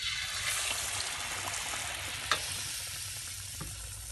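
A batter-coated banana slice is dropped into hot oil in a wok, setting off a sudden burst of sizzling that fades slowly. There is a sharp pop a little past halfway and a smaller one near the end.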